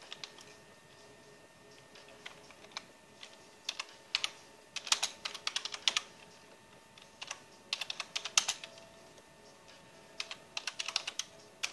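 Computer keyboard typing: quick clusters of keystroke clicks in several short bursts with pauses between them.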